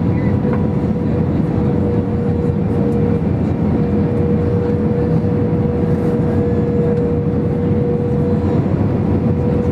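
Airbus A320 cabin noise on short final approach, heard from a window seat over the wing: the steady rumble of the jet engines and rushing air, with a steady whine on one pitch.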